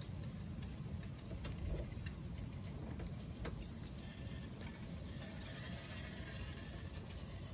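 Wind buffeting the microphone as a steady low rumble, with a few faint clicks from small parts being handled, about one and a half and three and a half seconds in.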